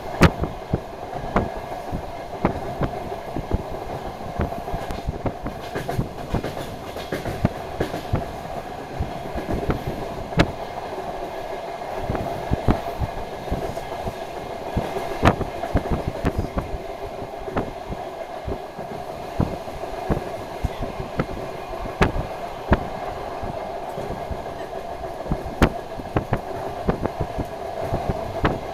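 DR1AMv diesel train running along the line, heard from on board: a steady running drone overlaid by frequent, irregular sharp wheel knocks over the rail joints.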